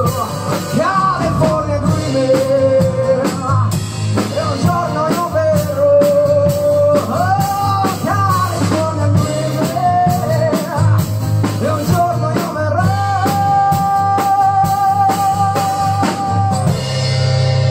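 Live rock band playing: a sung lead melody over electric guitar and drum kit. About a second before the end the drums stop and a final chord is held.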